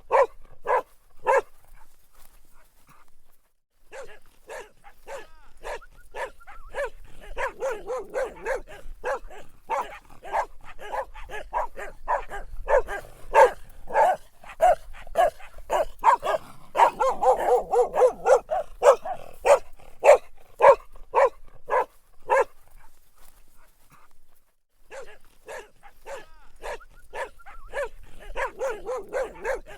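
Dog barking in quick runs of short, sharp barks, with two brief pauses: one about three seconds in and one a little over twenty seconds in.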